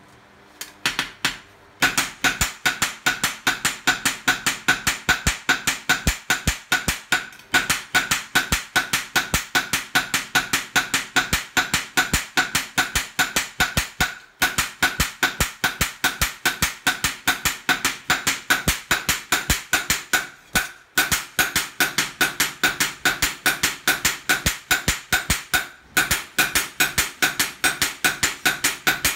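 Two hand hammers striking a steel gyuto knife blade on a steel post anvil in alternation. The blows come in a fast, even rhythm, each with a metallic ring, and stop briefly every several seconds.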